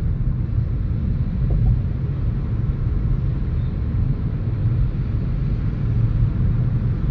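Steady low rumble of tyre and engine noise inside a car's cabin as it drives at speed on a highway.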